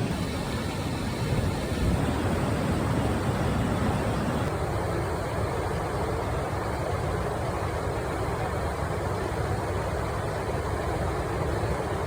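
Steady rushing roar of a waterfall, with the sound changing slightly about four and a half seconds in.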